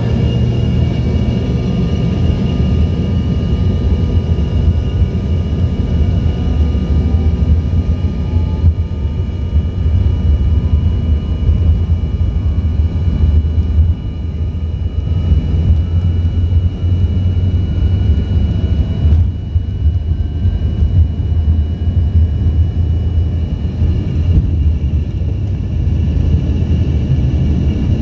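Cabin noise of an Embraer E145 regional jet with its rear-mounted Rolls-Royce AE3007 turbofans running: a loud, steady deep rumble with several thin steady whine tones above it.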